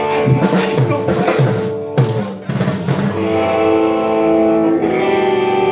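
A small live band playing: guitar and drum kit. The drums play busily for about the first three seconds, then drop out while the guitar chords ring on.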